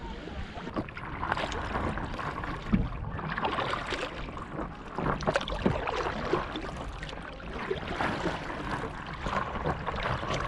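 Stand-up paddleboard paddles dipping and pulling through shallow seawater: irregular splashing and dripping strokes over a steady low rumble of wind on the microphone.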